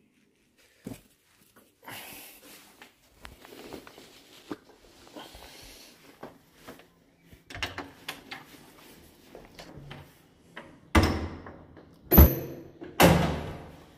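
Faint rustling and light knocks, then a wooden door handled and shut near the end: three loud thuds about a second apart, the middle one with a short metallic ring.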